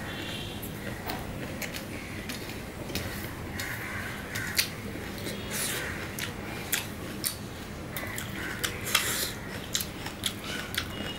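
Fingers picking at and gathering mashed pomelo pulp on a stainless steel plate: scattered light clicks and scrapes of fingertips on the metal, coming more often after the first few seconds.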